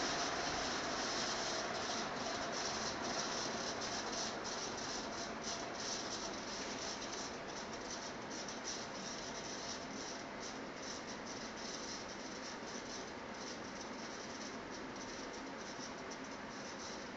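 Vintage AMC ceiling fan, its motor hum gone, with a steady rush of moving air and faint irregular rattling ticks that slowly fade: the fan coasting down after being switched off.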